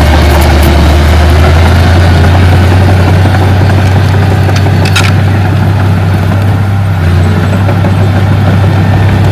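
Heavy earthmoving machine's diesel engine running steadily with a loud, even low hum, with a few short sharp clicks, the clearest about five seconds in.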